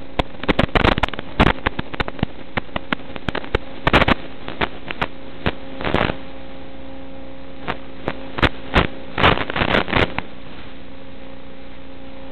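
Steady electrical hum and hiss from an analog FPV video link's audio, broken by irregular crackling static clicks that stop about ten seconds in.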